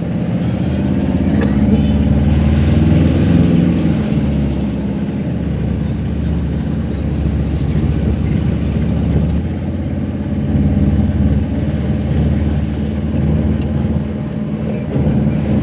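A car driving along the road: steady engine hum and road noise that swells slightly around the middle.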